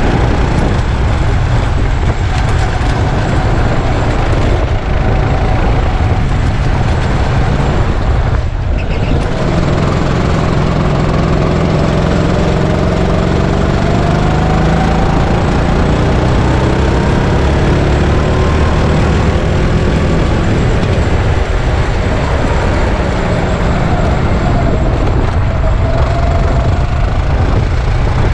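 Go-kart engine running hard, its pitch rising and falling as the kart speeds up and slows, with a brief dip about eight seconds in.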